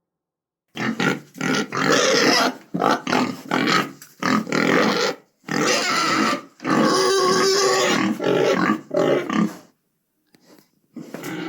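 Pigs squealing and grunting in a rapid run of loud calls, each lasting up to about a second, starting just under a second in, with a short break near the end.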